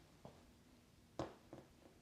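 Quiet room with faint rustling and one sharp click just over a second in, with two fainter ticks around it.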